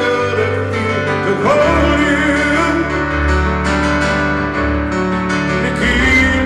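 Live pop-rock band music led by piano, recorded in an arena, with a male voice singing in parts.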